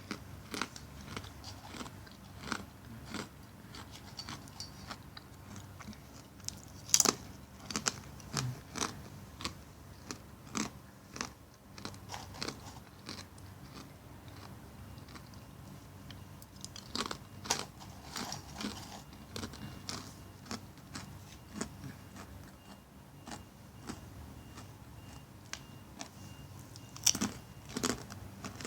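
Someone biting and chewing crisp banana chips: irregular sharp crunches throughout, with louder bites about seven seconds in, midway and near the end.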